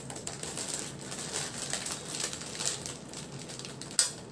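Plastic garment packets rustling and crinkling as they are handled, in irregular small crackles, with one sharp click about four seconds in.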